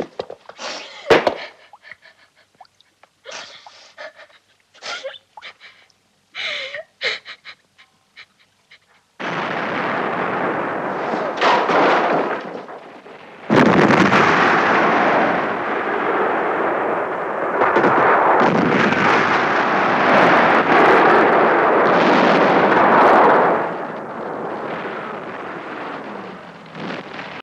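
Scattered soft clicks and faint whimpers. About nine seconds in, a loud, dense rumble of battle noise (gunfire and explosions) starts suddenly, swelling and easing in waves, then fades down near the end.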